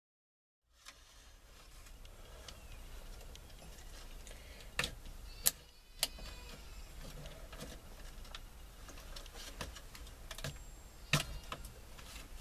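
Sharp clicks and taps of a turn signal switch's wiring harness and plastic parts being worked down through a Jeep Wrangler's steering column, over a low steady hum. Three louder clicks come close together about five to six seconds in, and one more near the end.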